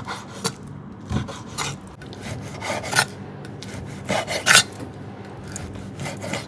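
Irregular scraping and rubbing strokes of objects being handled, with the sharpest scratches about four and a half seconds in.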